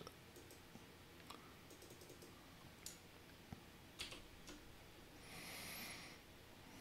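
Faint, scattered clicks of a computer mouse and keyboard, a few separate clicks a second or so apart, as menu items are clicked and text is pasted. About five seconds in there is a soft hiss lasting about a second.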